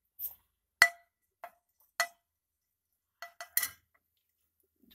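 Slotted metal spatula clinking against a nonstick frying pan: about seven short, sharp taps, each with a brief ring, the loudest about a second in and three in quick succession after three seconds.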